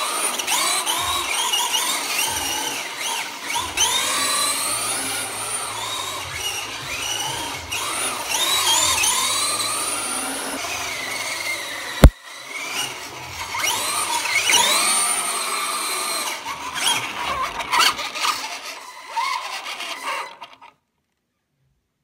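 ECX Torment 1/10 radio-controlled truck driven hard on a concrete floor: its electric motor whines up and down in pitch with the throttle while the tyres squeal in slides and donuts. One sharp knock comes about twelve seconds in, and the sound cuts to silence near the end.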